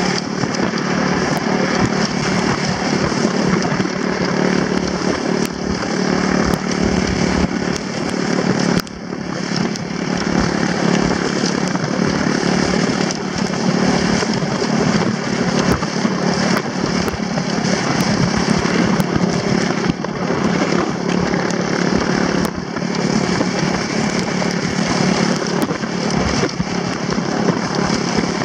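Sled towed over a snowy road behind a quad bike: a steady scraping rush from the sled on the snow, with frequent small knocks, over the quad's engine running steadily ahead.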